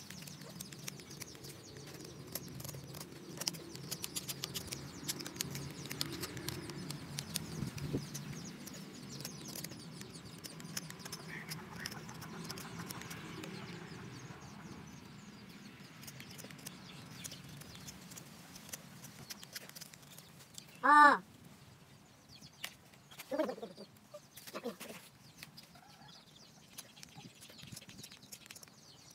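Rapid scraping of a homemade punched-steel rasp filing a wooden slingshot fork, busiest in the first half. About twenty seconds in, a chicken squawks once, loudly, followed by a few fainter clucks.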